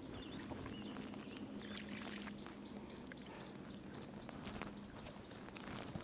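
Faint water sloshing and trickling around a kayak, with small scattered ticks and knocks against the hull.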